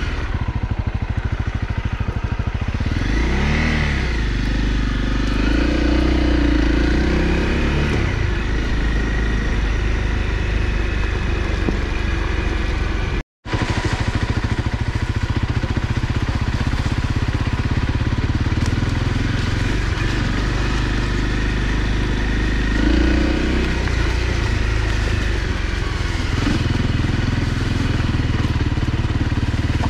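Honda CRF250L's single-cylinder four-stroke engine running steadily as the bike is ridden along a dirt track, its pitch rising and falling a few seconds in and again near the end. The sound drops out for an instant about thirteen seconds in.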